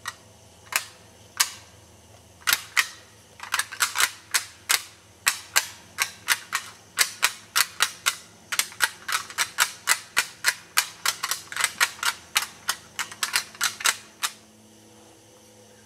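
Deer rattling imitating sparring bucks: sharp, hard clacks in irregular bunches, a few a second. They start about a second in and stop near the end.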